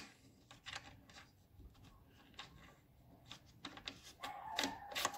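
Faint small clicks and light scraping of a threaded metal stud being turned by hand into the plastic base of a truck tow mirror, with a few sharper clicks near the end.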